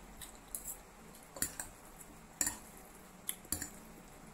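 Two metal forks clicking against each other and against a ceramic plate as a heap of noodles is lifted and tossed, about ten sharp clinks at irregular intervals.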